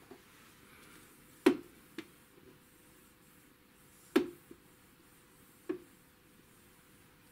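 A handful of sharp clicks and knocks from handling test gear on a workbench. Two loud ones come about a second and a half and four seconds in, with fainter ones between and after, over a faint steady hum.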